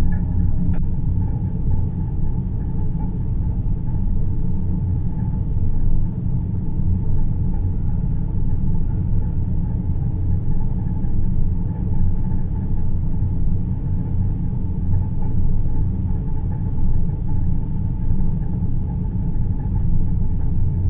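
Deep-space sleep ambience: a steady, deep rumble with a faint hiss above it, unchanging throughout.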